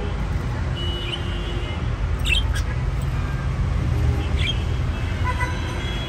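A low, steady rumble of background traffic, with short budgie chirps about two and four seconds in. Near the end comes a held, horn-like tone.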